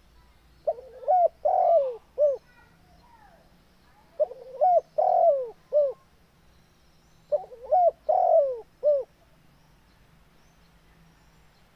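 Spotted dove (tekukur) cooing: three phrases of a few short, rising-and-falling coos each, with one longer coo in the middle, about three seconds apart.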